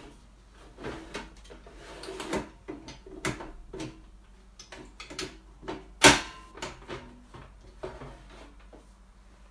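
Klarstein AeroVital air fryer's removable basket and pan being handled and fitted back together: a series of light clicks and knocks, with one sharp knock about six seconds in.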